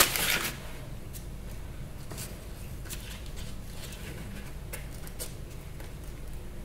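Faint, soft handling sounds of hands rolling and folding puff pastry into croissant shapes, with a brief louder rustle at the start and a few light ticks after, over a low background hum.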